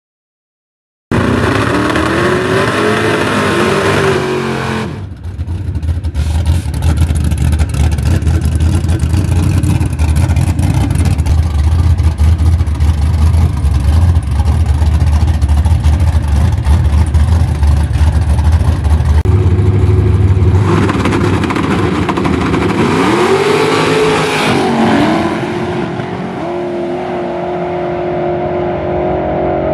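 Drag race cars' engines at the starting line: revved up and down, then a loud, heavy rumble held for many seconds while staged. Near the end the engines rise in pitch and fall back as the cars launch and run down the track, settling into steady high notes.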